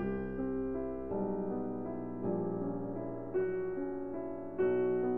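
Background piano music: slow, gentle chords, a new one struck about every second.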